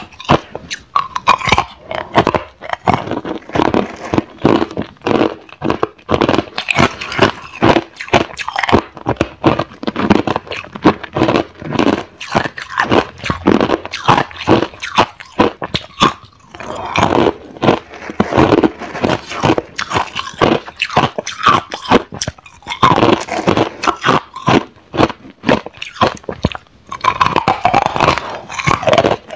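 Clear ice being bitten and chewed close to a clip-on microphone: a dense run of sharp cracks and crunches, with a couple of short pauses.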